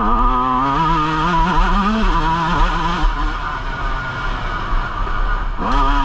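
Yamaha YZ125 single-cylinder two-stroke dirt bike engine on the throttle, its pitch wavering up and down. It eases off about halfway through, then revs up sharply again just before the end.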